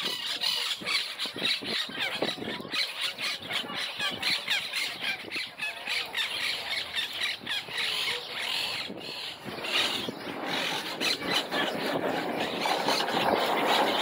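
A colony of monk parakeets screeching and chattering, with many short harsh calls overlapping without a break.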